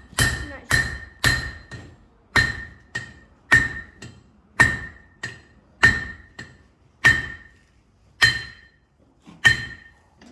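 Blacksmith's hammer striking hot iron on the anvil to forge a hand-made nail. There is a steady run of blows, each ringing briefly and clearly, at first about two a second, then slower, as a heavy blow followed by a lighter tap about once a second.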